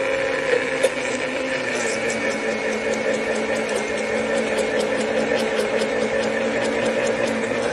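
Countertop blender motor running steadily with an even whine, churning a thick paprika mayonnaise in its plastic jar.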